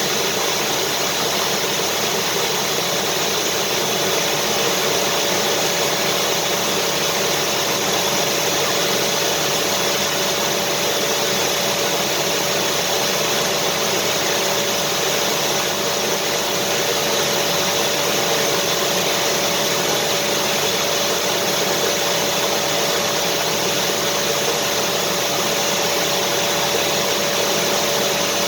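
Vacuum cleaner running continuously: a steady motor drone with a constant whine and airflow hiss, unchanging throughout.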